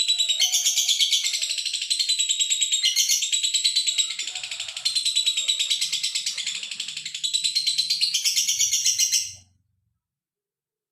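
Male lovebird singing a long, rapid, high-pitched chattering trill without a break, which cuts off abruptly about nine seconds in.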